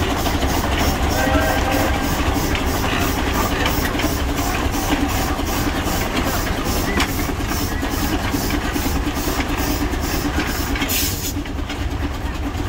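Large antique tractor engine running as the tractor drives slowly past, with a steady low rumble and an even beat of about three strokes a second.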